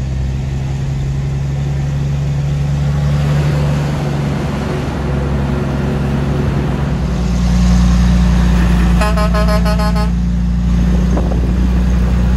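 Diesel truck engine running steadily, heard from inside the cab; its note rises and grows louder about seven seconds in. About nine seconds in, another truck's horn sounds for about a second, honking at the vehicle ahead to make room to swing out.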